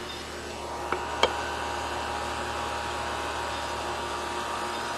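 Two sharp plastic clicks about a second in as a tight-fitting plastic drain-vac adapter is worked apart by hand, over a steady mechanical hum.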